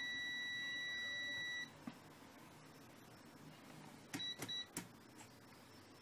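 Extech EX355 multimeter's continuity beeper sounding a steady high-pitched tone for about a second and a half, with the probes across a halogen bulb's filament, then cutting off. About four seconds in come a few sharp clicks and two short beeps as the meter's rotary selector is turned.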